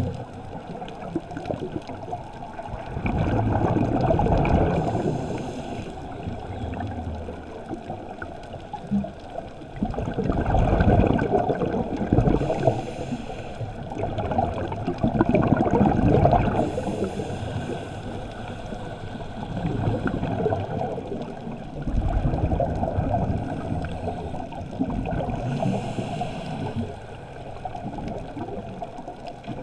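Muffled rush and gurgle of water heard underwater through a camera housing, swelling and fading every few seconds.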